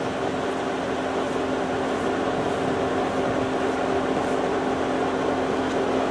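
A steady mechanical hum with a constant low tone and no change in level.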